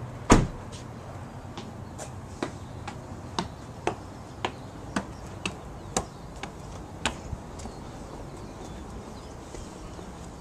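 A car door slams shut, then footsteps on concrete, about two a second for several seconds, before they stop.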